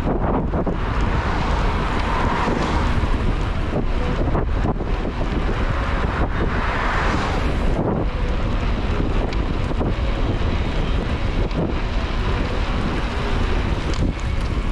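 Wind buffeting the microphone of a camera on a moving road bicycle: a steady low rumbling noise from riding at speed.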